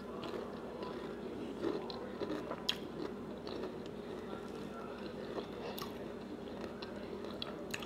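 Close-up mouth sounds of a person chewing a forkful of gravy-covered country fried steak with her lips closed, with scattered soft clicks and smacks. A faint steady hum lies underneath.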